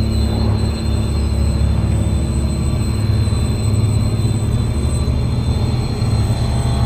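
A loud, steady low drone from a film's sound design, with thin high ringing tones held above it and no break or change.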